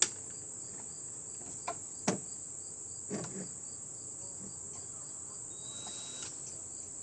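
Insects in the background: a steady high-pitched drone with a cricket chirping rapidly and regularly. Over it come a few sharp knocks and clicks, the loudest right at the start and about two seconds in.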